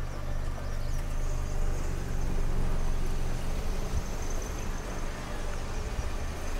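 A motor vehicle's engine idling: a low, steady hum that weakens about four seconds in.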